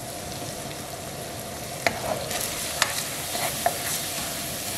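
Ground beef sizzling as it browns in a hot skillet, stirred and broken up with a cooking utensil, with a few sharp clicks of the utensil against the pan about two to four seconds in.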